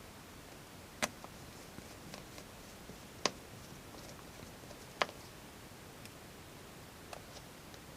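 Three sharp small clicks, about two seconds apart, with a few fainter ticks between them: small plastic and metal parts of a car key remote being handled and fitted back together.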